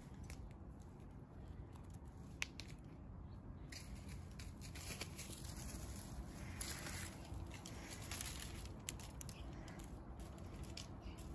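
Faint rustling and crackling of dry grass and leaves as a cat pushes through them with a caught bird in its mouth, over a low steady rumble, with one sharp click about two and a half seconds in.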